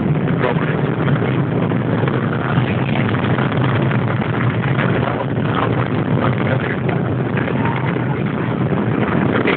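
Distant Atlas V rocket climbing after launch: a steady low rumble with fine crackling from its RD-180 main engine and four solid rocket boosters.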